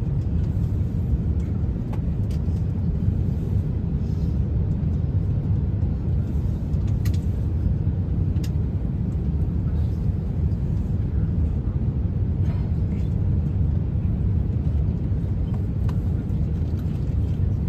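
Steady low rumble of airliner cabin noise inside an Airbus A350 descending toward landing, with a few faint clicks.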